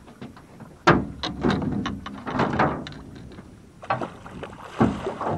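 Knocks and thumps on a small boat as a pole is handled on deck. The loudest comes about a second in and another near the end, with a run of smaller clicks and rattles in between.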